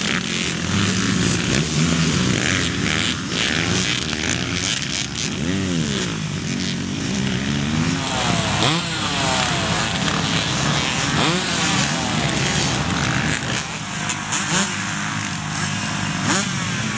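Off-road racing motorcycles running hard, several engines at once, revving up and falling back again and again as riders accelerate and shift.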